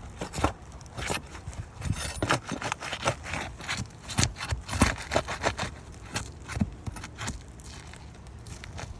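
Irregular scraping, crackling and knocking from handling and working asphalt roof shingles during a shingle repair. The sounds are dense at first and thin out over the last couple of seconds.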